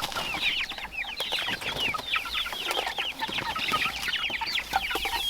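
A flock of young chickens calling nonstop, with many short, high, falling peeps overlapping several times a second.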